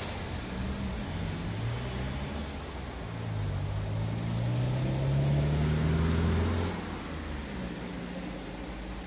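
Road traffic passing on a bridge: over a steady low rumble, a vehicle's engine note rises steadily and grows louder about three to six seconds in, then cuts off abruptly near seven seconds.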